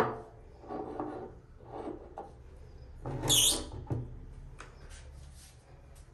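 A small gold leaf-shaped trinket dish knocked down onto a wooden shelf, followed by softer rubbing and scraping of objects on the wood, a longer hissing scrape about three seconds in, and a click just after it.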